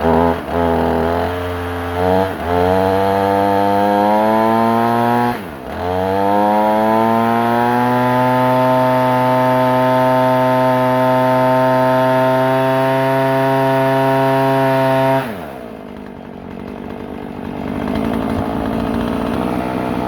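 Husqvarna 450 two-stroke chainsaw revving up twice and held at high speed on a hydraulic brake, being run under load to heat it up. About fifteen seconds in the engine note falls sharply and cuts out, leaving a rushing noise.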